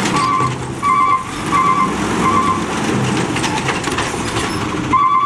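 Automated side-loader garbage truck, natural-gas powered, running steadily while its arm lifts a wheeled bin. A warning beeper sounds over the engine: four short beeps a little under a second apart in the first half, and one more near the end.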